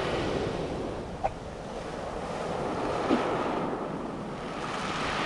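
Sea surf washing up and draining back over a pebble beach, swelling and easing, with two short sharp sounds, about a second in and about three seconds in.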